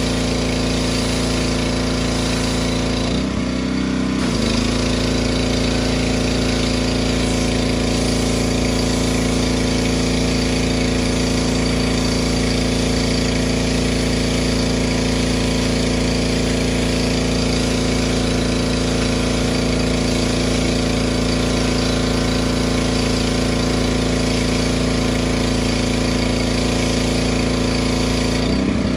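Craftsman gas pressure washer's small engine running steadily while driving the pump, with the hiss of the high-pressure spray hitting wet concrete. The engine note dips briefly a little over three seconds in.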